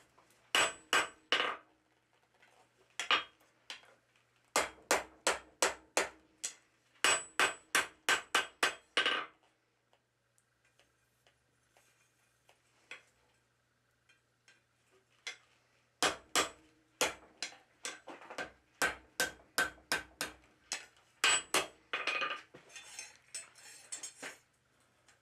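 Hand hammer forging a hot steel bar on an anvil, in quick runs of blows at about three to four a second, each with a faint metallic ring. The blows stop for several seconds partway through, then start again.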